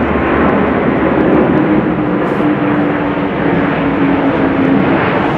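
Airbus A350-1000 airliner's Rolls-Royce Trent XWB turbofans making loud, steady jet noise as it passes low overhead. A low hum in the noise slowly falls in pitch as the aircraft goes by.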